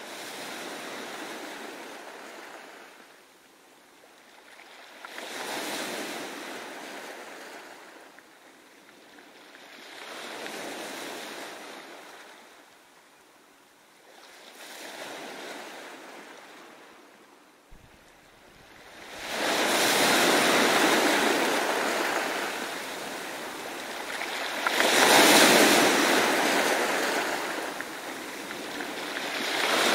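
Ocean surf breaking on a beach, each wave's wash swelling and fading about every five seconds. It grows louder, with more low rumble, in the second half.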